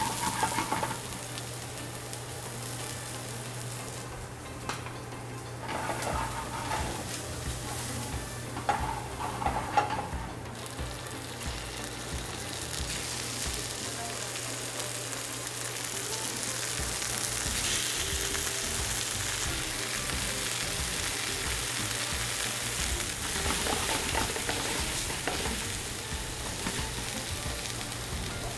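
Onions and garlic frying in hot oil in a pan, sizzling steadily, the sizzle growing louder from about halfway through.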